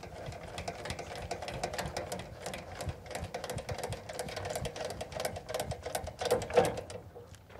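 Rapid, even mechanical clicking and whirring from a trailer tongue jack being run while the boat trailer is hitched, stopping about seven seconds in.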